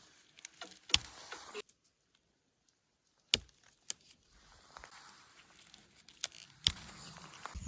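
Rustling and handling of brush with several sharp snaps and clicks scattered through it.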